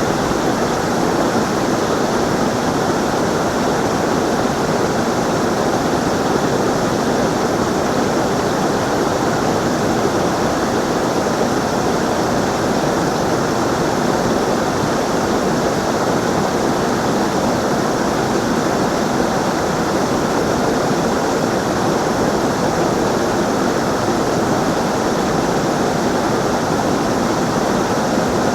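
Running water, a steady even noise with no breaks or changes in level.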